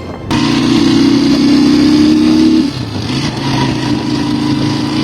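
Motor vehicle engine running steadily. It cuts in suddenly just after the start and eases a little about two and a half seconds in.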